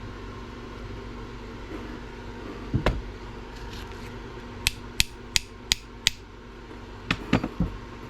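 A run of sharp, brief taps of hard objects: two together about three seconds in, then five evenly spaced at about three a second, then three more, over a steady fan-like hum.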